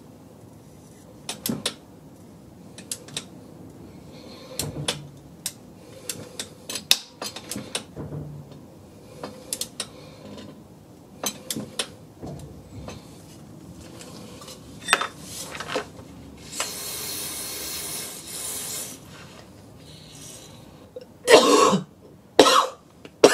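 Ratchet wrench clicking in short irregular runs as a seized, corroded aircon-pump mounting bolt is worked loose. A hiss lasting about two seconds past the middle, and two louder noises near the end.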